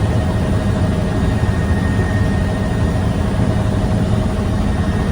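Helicopter in flight, heard from on board: the engine and rotor make a loud, steady drone with a thin steady high whine over it.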